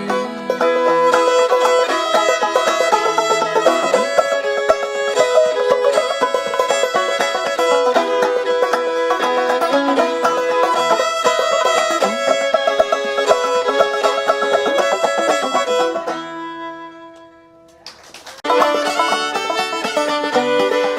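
Background music: an instrumental banjo-and-fiddle passage with no singing. It fades out about 16 seconds in, and another banjo tune starts about two seconds later.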